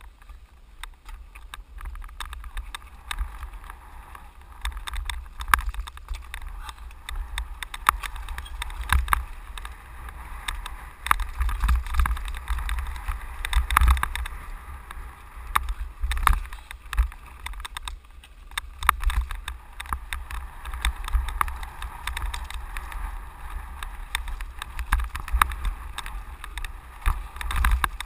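Mountain bike riding fast down a loose gravel and rock trail: continuous wind buffeting on the microphone, tyres crunching over gravel, and many sharp rattles and knocks from the bike and camera mount jolting over bumps.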